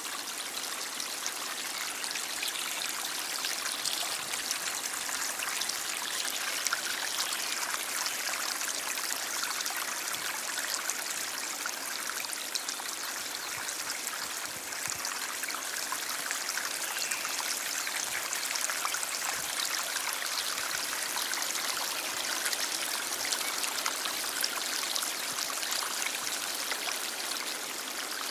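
A stream flowing: a steady, even rush of water, mostly high-pitched with little low rumble, flecked with many tiny splashes.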